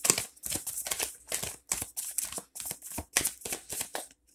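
Tarot cards being shuffled by hand: a quick, irregular run of papery card clicks and slaps.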